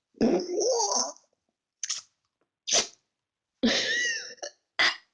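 Close-miked mouth sounds while eating something juicy and chewy: a short wavering vocal noise near the start, then a few sharp wet smacks and a hissing, slurping burst.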